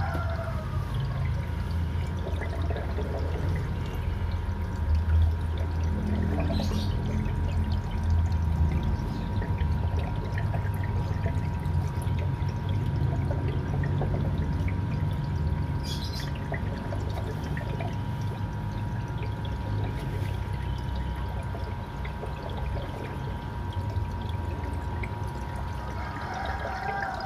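Aquarium water running and trickling steadily, as from a filter's water return, over a low rumble, with a faint steady whine.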